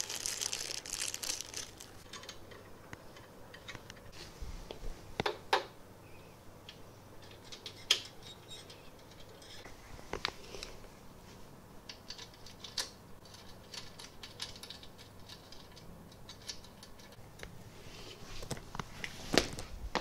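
Scattered small clicks and taps, with some rustling at the start: screws and metal parts being handled and fitted while the Z-axis of a 3D printer is screwed on.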